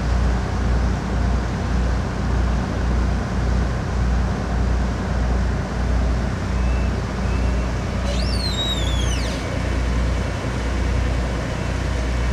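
A boat's inboard engine running under way, a steady low drone over a wash of water and wind noise. About eight seconds in comes a short high cry, about a second and a half long, that falls in pitch.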